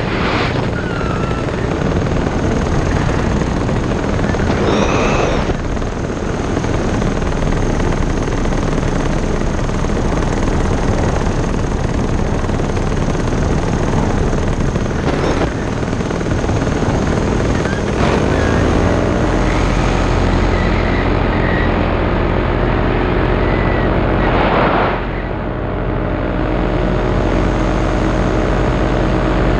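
Paramotor engine and propeller running in flight, mixed with heavy wind rush on the microphone. About two-thirds in the engine comes through as a steady hum of several pitches, with a brief louder surge of wind a few seconds later.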